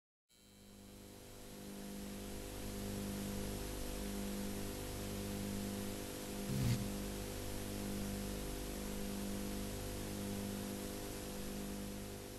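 Steady hiss and mains hum, with a low tone pulsing on and off about once a second and a single click a little past the middle.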